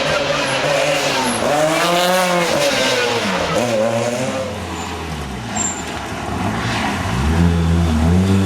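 Lancia 037 rally car's supercharged four-cylinder engine revving hard, its pitch climbing and dropping several times as it accelerates and lifts through the gears, loudest again near the end.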